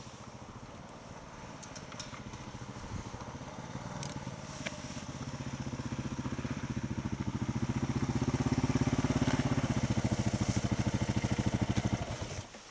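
A motorcycle engine approaching, its even firing pulse growing steadily louder as it rides up, then cutting off suddenly near the end as the bike stops and is shut down.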